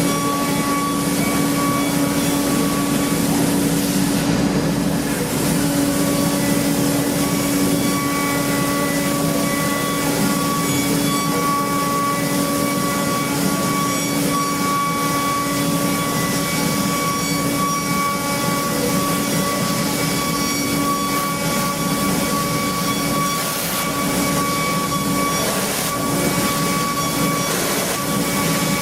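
CNC machining centre running as it machines an engine block: a steady machine hum and whine with several high held tones over a constant hiss.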